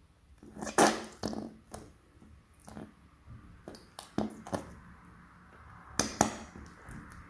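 Soft rubber squeeze toys being pressed in the hands, pushing slime out of their trunks and mouths: short squelches and clicks at irregular intervals, loudest about a second in and again about six seconds in.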